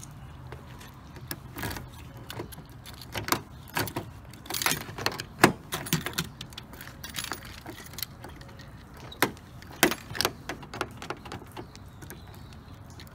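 A bunch of keys on a key ring jangling, with scattered short metallic clicks and jingles as they are handled at a car's door lock.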